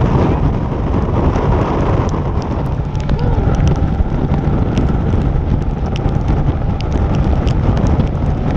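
Heavy wind buffeting the microphone and driving rain on a small open boat in a squall, as a steady loud rush with a deep rumble, dotted with many sharp ticks of raindrops striking close by.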